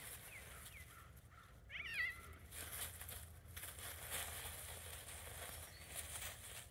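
Dry leaves rustling and crackling as two cats wrestle and roll in them, with a bird chirping briefly about two seconds in.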